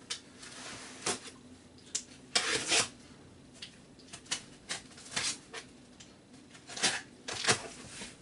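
A taped cardboard shipping box being opened by hand: a string of scattered sharp clicks and knocks of cardboard, with a short, louder rustling scrape about two and a half seconds in.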